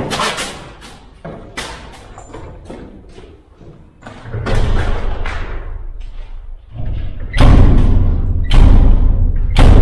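Cinematic sound-design hits: a few sharp knocks, then deep booming impacts over a low rumble that grows louder, with two heavy booms near the end.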